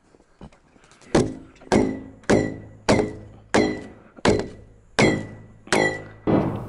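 Hollow thunks from a 4.5-inch PVC dryer vent pipe being pounded, about nine blows starting about a second in, roughly one every two-thirds of a second, each ringing briefly. The pipe is being forced through a rim-board hole about a sixteenth of an inch too small for it.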